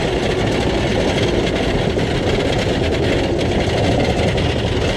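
Wooden roller coaster train being hauled up the chain lift hill: a steady, loud mechanical clattering rattle of the lift chain and track.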